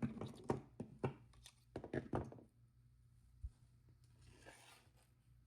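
Small metal clicks and taps of jewelry findings, charms and pliers being handled on a work surface while jump rings are attached, a quick cluster in the first two seconds or so, then a single soft thud and a brief rustle.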